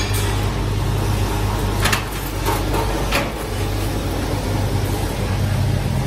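Scrap wire stripping machine running with a steady motor hum as a green insulated cable is pulled through its rollers and blades. There are a few brief, sharper noises about two and three seconds in.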